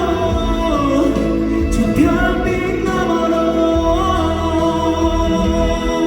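Live pop ballad through a concert sound system: a male voice singing long held notes over band accompaniment with a steady bass.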